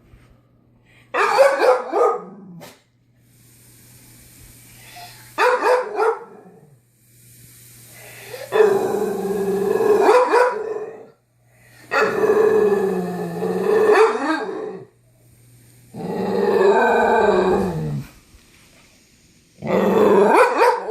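A dog barking and growling in six drawn-out bouts, each one to three seconds long, with a wavering pitch.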